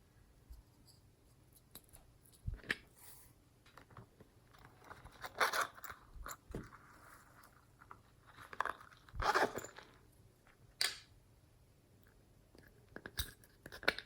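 Glossy slime being squished and stretched by hand, giving irregular sticky crackles and pops in scattered bursts. The loudest come about five and nine seconds in.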